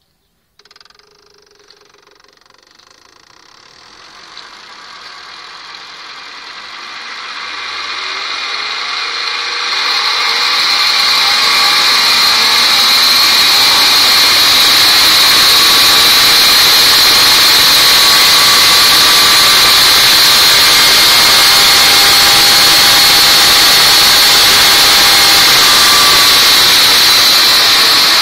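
Homemade electric car's DC traction motor free-revving with no load: it spins up over about ten seconds, getting steadily louder, then holds a steady high-pitched whine over a loud hiss at roughly 8,000–10,000 rpm.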